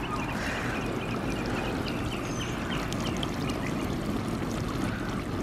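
Water jets of an inflatable splash pad sprinkler mat spraying up and pattering back onto the vinyl mat, a steady watery hiss.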